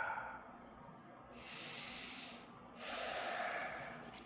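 A man breathing slowly and deeply, loud enough to hear: the end of an exhale at the very start, an inhale about a second and a half in, then a longer exhale about three seconds in.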